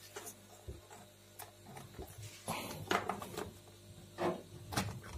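Small scattered plastic clicks and rubbing as wired spade connectors are handled on a replacement rocker switch and the switch is pressed into its panel cutout on a tea bar dispenser, with a cluster of clicks in the middle and a few single clicks later.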